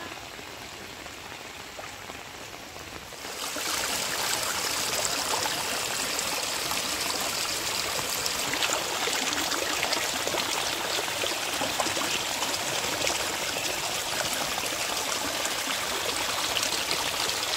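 Muddy rainwater runoff rushing and splashing over rocks in a small flooded stream, a steady pouring of water. It starts quieter and gets suddenly louder about three seconds in.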